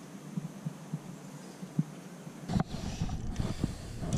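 Irregular low pops and thumps from a faulty microphone on a loose connection at the camera's microphone input. About two and a half seconds in, it turns into a louder, continuous crackling rumble.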